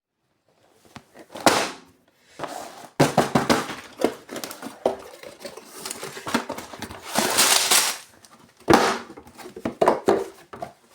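A cardboard box and its packaging being handled and opened: irregular rustling, scraping and knocks, with a longer rustle or tear near the middle.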